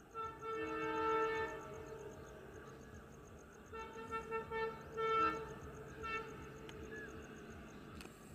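Diesel locomotive's multi-tone air horn: one blast of about two seconds, then after a pause a quick string of short toots and a last short one around six seconds in, over a faint low rumble.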